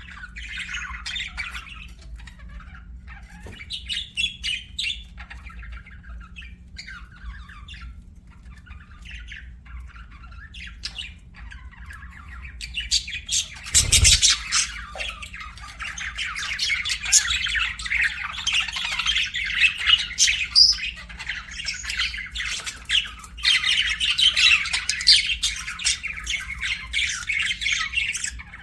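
Budgerigars chirping: scattered short calls at first, then from about halfway a dense, continuous warbling chatter. A single sharp knock comes just as the chatter picks up.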